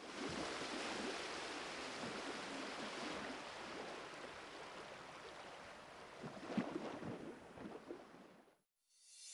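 Rushing, water-like noise, like surf or water washing past a boat, slowly fading, with a few soft knocks about two-thirds of the way through; it cuts off shortly before the end.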